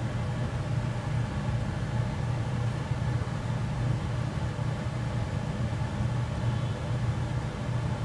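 Steady low machine hum with a fluctuating rumble underneath.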